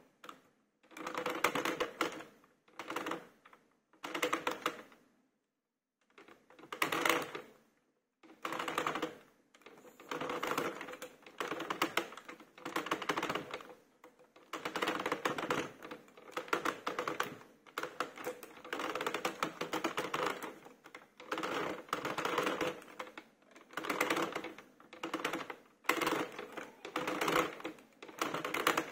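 Hand-cranked plastic circular knitting machine clattering in short bursts of rapid clicks as its needles are advanced a stitch or two at a time, with pauses between bursts. Past the first few seconds the bursts come about once a second.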